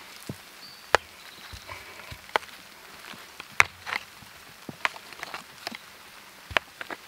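Stones being set down on dirt and knocked against one another as they are laid into a fire ring: irregular sharp clacks and knocks, several seconds apart or in quick pairs, with scuffing between them.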